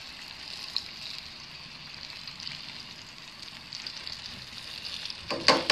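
Hot oil sizzling steadily as oliebollen, Dutch dough balls, deep-fry in a pot on a camp stove. A brief louder noise comes near the end.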